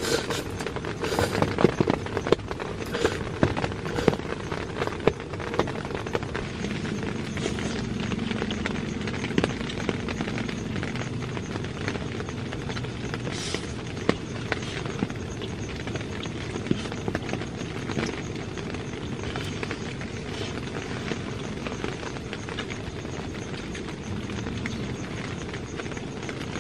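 Heavy rain on a tent: a steady hiss with heavy drops tapping irregularly on the fabric, the taps thickest in the first few seconds.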